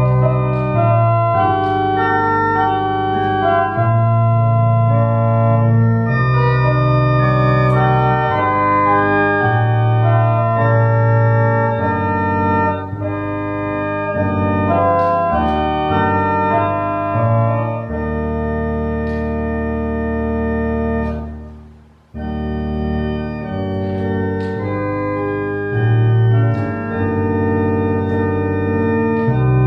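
Church organ playing a hymn in sustained chords over low bass notes, the chords changing every second or two. About 22 seconds in, a long held chord is released into a brief near-silent gap, and then the playing resumes.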